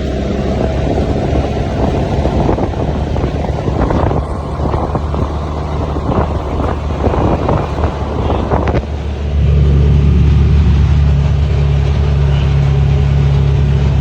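Can-Am off-road vehicle's engine running while riding along, with wind on the microphone and rattling jolts in the middle; about two-thirds in, the engine note becomes steadier and louder.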